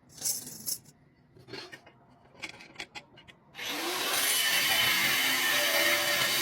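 A few short scraping strokes of a tool on metal. About three and a half seconds in, a power tool starts and runs loudly and steadily.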